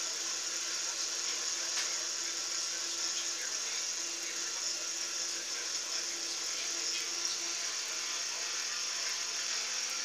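Small benchtop milling machine running steadily under power, a constant whir with a high hiss, while the table is fed by hand through a cut.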